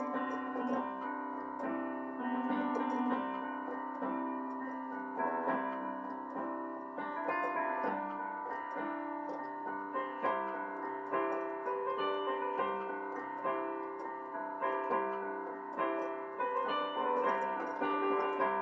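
Solo piano playing a lively sonata movement, a steady stream of quick, distinct notes over a lower accompaniment.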